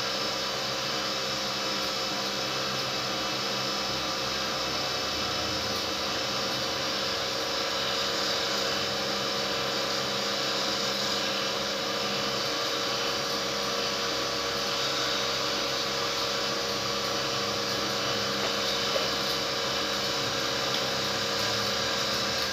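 Flame-heated cotton candy machine running steadily: the spinning head's motor hums with a steady tone under a constant hiss, as floss spins out of the head.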